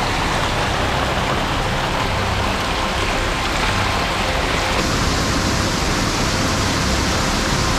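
Steady rush of flowing water, an even noise that holds without pauses.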